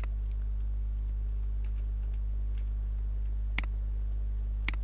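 Computer mouse clicking: three sharp single clicks, one right at the start and two more about three and a half and four and a half seconds in, over a steady low electrical mains hum.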